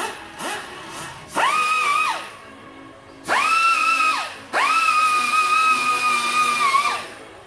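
Pneumatic air tool run in three bursts, its air motor whining up to a steady pitch over loud air hiss and winding down at each release, the last burst the longest. Background music plays underneath.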